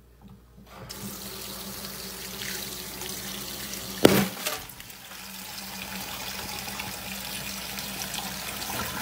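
Kitchen tap running, water pouring onto a bread roll in a stainless steel sink, with a sudden loud hit about four seconds in.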